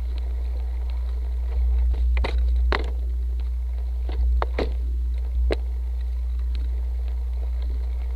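Motobecane Fantom Cross cyclocross bike rolling over a bumpy grass track, heard from a saddle-mounted camera as a steady low rumble. Several knocks and rattles come between about two and five and a half seconds in as the bike jolts over the ground.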